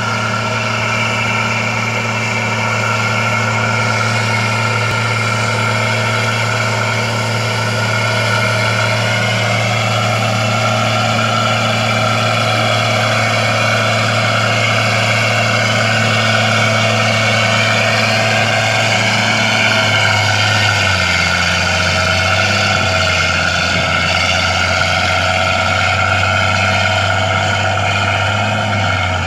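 Komatsu D65 crawler bulldozer's diesel engine running steadily. Its note drops lower about two-thirds of the way through.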